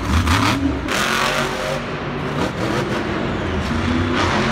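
Monster truck engine revving hard over and over, its pitch climbing and dropping as the truck drives and wheelies up a ramp.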